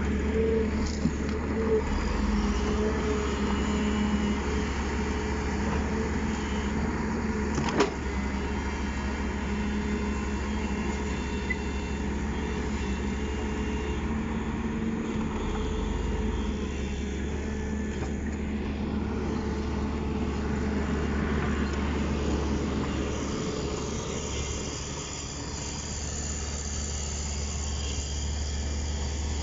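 Heavy diesel engine of a tracked excavator running steadily at close range, a deep continuous drone, with a single sharp knock about eight seconds in.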